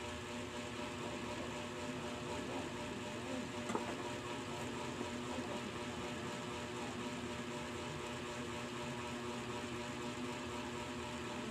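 Steady mechanical hum with a faint background hiss, and a single click about four seconds in.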